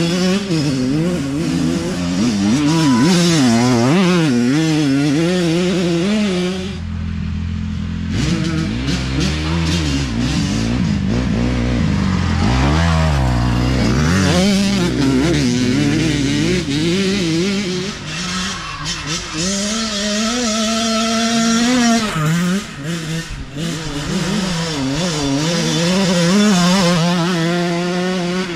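Several youth dirt bikes' engines revving up and down, shifting through the gears as the riders pass one after another. About seven seconds in there is a briefly deeper, steadier engine note.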